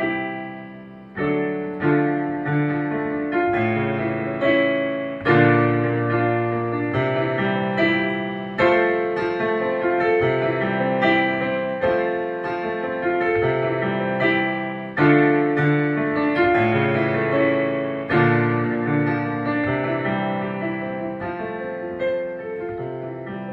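Solo piano music: chords struck one after another, each left to ring and fade, growing quieter near the end.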